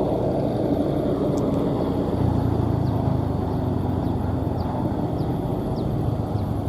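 Maxxi J Automatic New combine harvester's diesel engine running steadily as the machine travels, with a low, even drone.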